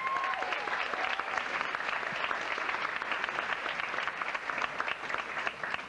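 Audience applauding steadily in a hall, the clapping easing off at the end.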